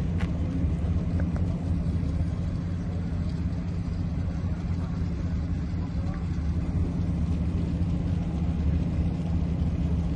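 Steady low rumble of a moored roll-on/roll-off cargo ship's machinery running, with a constant deep hum. Faint crowd voices are mixed in.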